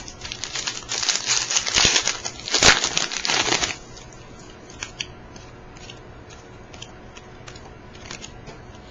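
Plastic wrapper of a basketball card pack being torn open and crinkled for about three and a half seconds, then only a few faint ticks.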